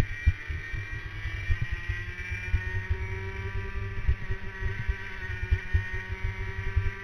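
Tony Kart OTK racing kart's two-stroke engine running at racing speed, heard onboard; its note rises and falls a little. Low irregular thumps and buffeting come from wind and the chassis shaking the mounted camera.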